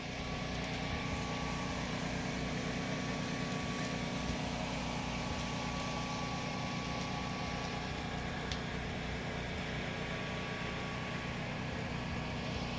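An engine running steadily at idle: an even, low hum with no change in speed.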